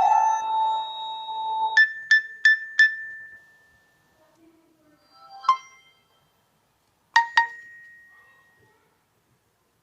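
Stock Nokia Lumia 925 alert tones played one after another. A held electronic note ends with a quick run of four bright pings, a single chime follows about five and a half seconds in, and a double ping comes a couple of seconds later.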